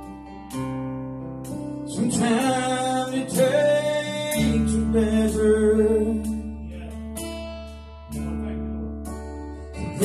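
Live gospel song: acoustic guitar strummed over held low keyboard notes, with a man singing into a microphone from about two seconds in.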